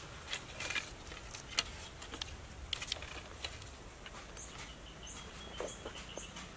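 Dry wooden slats and bark clicking and rustling as they are handled against a vine-lashed pole frame. In the second half a small bird chirps a short high note about four times.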